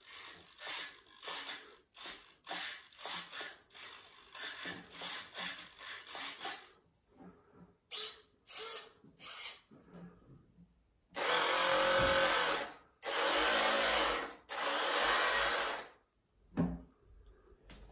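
Servos of a radio-controlled model submarine buzzing in short bursts, two or three a second, as they work the control surfaces. Then the electric drive motor runs up three times, louder, for about a second and a half each. A low knock comes near the end.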